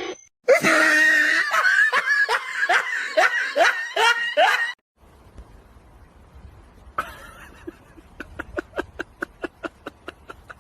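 Hearty laughter in quick repeated bursts, about four a second, for the first few seconds. After a sudden cut it turns much quieter, with a fast, even run of light clicks, several a second.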